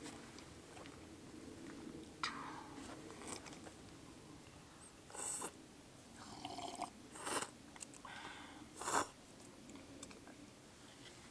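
People eating at close range: chewing, with a few short, sharp noises about two, five, seven and nine seconds in; the one near nine seconds is the loudest.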